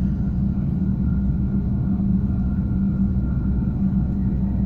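ŽS series 413/417 (Stadler FLIRT) electric multiple unit giving off a steady low hum and rumble.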